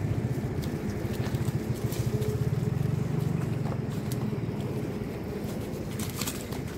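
A steady low rumble of handling and wind noise on a phone camera's microphone as it is carried through leafy bushes, with some rustling. A few sharp clicks come about six seconds in.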